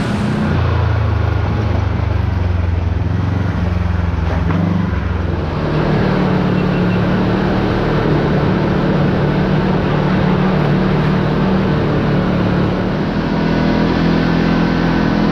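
Kawasaki Teryx KRX4 1000 side-by-side's parallel-twin engine running under way, its pitch stepping up about five seconds in as the revs rise, then holding steady.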